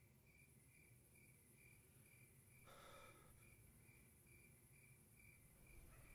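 Near silence with faint cricket chirping: a thin high chirp repeating about twice a second, and a brief soft noise about halfway through.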